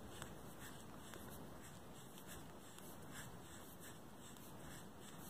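Faint, soft scratchy rustling of yarn drawn through a crochet hook, repeating as a foundation chain of crochet stitches is worked.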